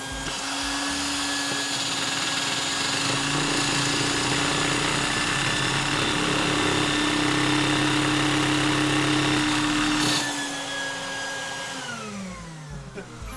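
A vacuum cleaner running and sucking air through a LEGO single-cylinder sliding-valve vacuum engine, which spins fast, up to about 1,800 RPM with no lubrication. The vacuum is switched off about ten seconds in and its motor winds down, falling in pitch, near the end.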